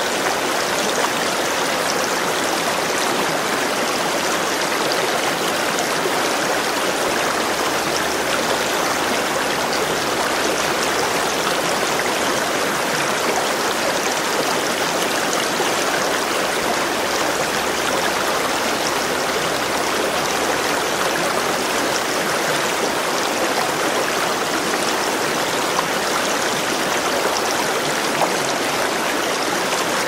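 Shallow stream flowing steadily, a continuous even rush of moving water.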